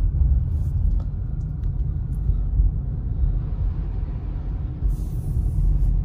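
Steady low rumble of a car's engine and tyres heard from inside the cabin while driving on a snow-covered road.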